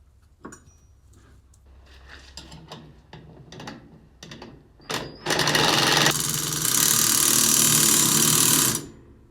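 Impact gun hammering a bolt tight on a slurry tanker part, a loud, fast rattle lasting about three and a half seconds and stopping sharply. Before it come a few light clicks and knocks of the socket and tool being handled.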